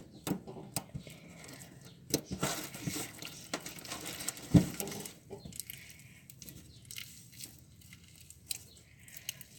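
Homemade glue slime being kneaded and pulled by hand: irregular sticky clicks and crackles, with one louder pop about four and a half seconds in.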